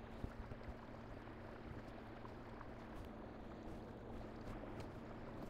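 Newport Vessels 55 lb-thrust electric trolling motor running steadily under way on a kayak: a faint, even hum over the wash of water along the hull.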